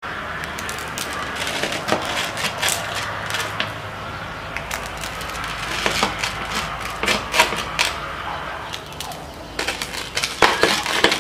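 Knife cutting through the crisp, flaky phyllo layers of a custard-filled bougatsa pie, an irregular run of sharp crackles and crunches.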